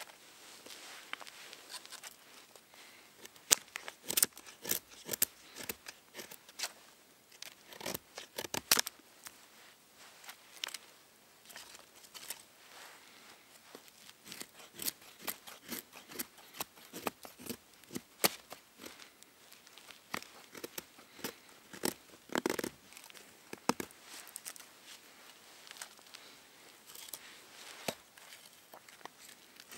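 Fixed-blade knife shaving curls off a split stick of wood to make a feather stick: a run of short, uneven scraping strokes, some sharper and louder than others.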